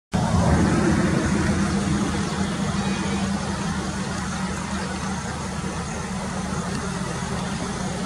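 Highway traffic of heavy diesel trucks and a bus running past, a steady engine hum with road noise that is loudest at the start and eases off over the first few seconds.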